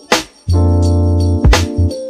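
Background music: held keyboard chords over a heavy bass, with a sharp drum hit near the start and another about a second and a half in.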